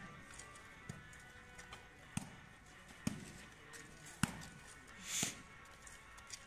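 Volleyballs being struck and bouncing: sharp, separate thuds roughly once a second, over faint background music, with a brief hiss a little after five seconds in.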